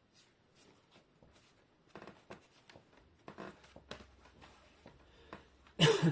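Plastic laptop screen bezel being pressed back onto the display by hand: a run of small clicks and handling noises as its edge clips seat, with one much louder click near the end.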